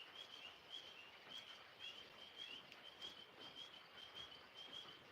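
Faint chirping of crickets: short, high chirps about two a second over a low background hiss.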